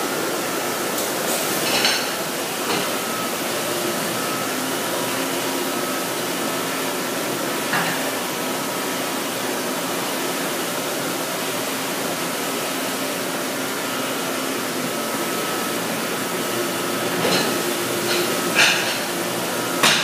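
Commercial rack-conveyor dishwasher running with a steady noisy rush and a thin steady whine, punctuated by a few sharp clanks of dish racks and plates, once about two seconds in, once near the middle and several near the end.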